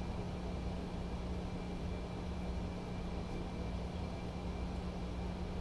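Steady low electrical hum with a faint high whine over even background noise, with no distinct knocks or clicks.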